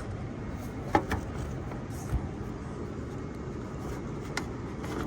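A few light clicks and a low knock of a plastic door latch being worked into a truck's side box door, over a steady low rumble.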